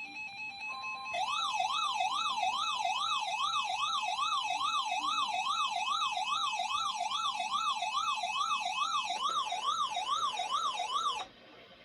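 Emergency alert attention signal: after brief steady beeping tones, a loud warbling tone sweeps up and down about three times a second over a steady tone, then cuts off suddenly near the end.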